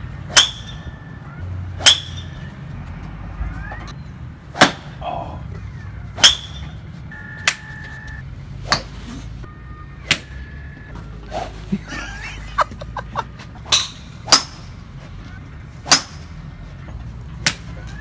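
Golf clubs striking balls off driving-range mats: about a dozen sharp cracks, one every second or two, some louder than others.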